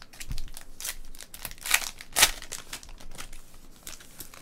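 A trading-card pack's wrapper crinkling and tearing as it is opened by hand, with a string of short crackles, the loudest two about a second and a half and two seconds in.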